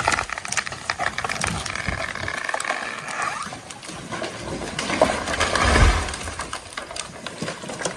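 A felled tree coming down: branches crack and snap, then a heavy crash about six seconds in, the loudest moment.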